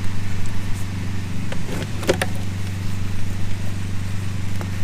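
Steady low machine hum, with a few light clicks about two seconds in.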